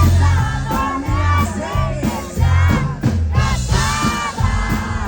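Accordion-led band music with a strong, pulsing bass line.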